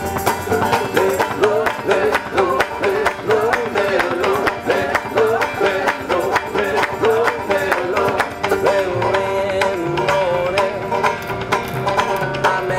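Acoustic alt-country band playing an instrumental passage: banjos picked rapidly over upright bass, with a wavering melody line on top.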